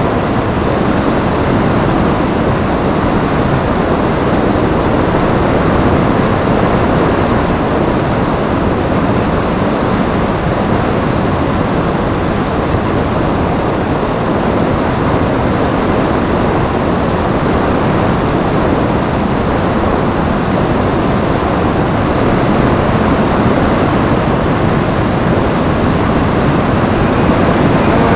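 Steady loud rush of wind buffeting the microphone of a camera riding on an FPV flying wing in flight.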